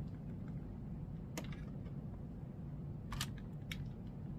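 A few light plastic clicks as an ink bottle is handled on the printer's ink tank: one about a second and a half in, then two close together near the end, over a low steady hum.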